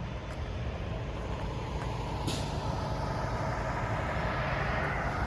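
Steady rumble of a nearby vehicle engine running, growing slightly louder toward the end, with a short high hiss about two seconds in.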